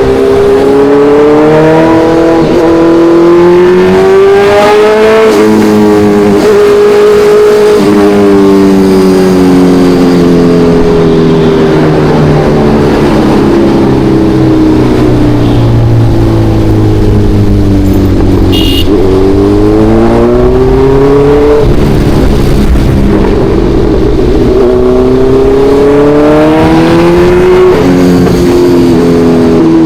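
Kawasaki Ninja 1100SX motorcycle's inline-four engine heard from the rider's seat under way, with wind rush. The engine note climbs under acceleration and drops sharply at each upshift, about four times. In the middle it falls slowly for about ten seconds as the bike slows, then pulls up through the gears again. A short high tone sounds about two-thirds of the way in.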